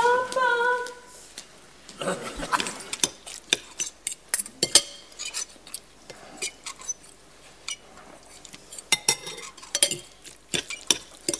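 Forks and spoons clinking and scraping against plates and bowls during a meal, a rapid irregular run of sharp clicks. A voice's held note ends about a second in, before the clinking starts.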